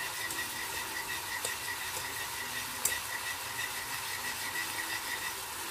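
Caramel sauce of butter and cream simmering and bubbling in a saucepan as it thickens, with a few faint clicks of a whisk being stirred through it.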